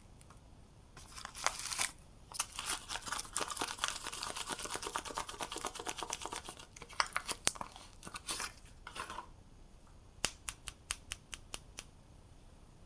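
Soap packaging being torn and crinkled open for several seconds, then a quick run of sharp taps near the end.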